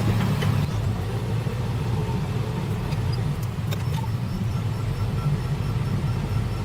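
Backhoe's diesel engine running steadily, heard from inside the cab. A faint high beeping repeats in the background over the second half.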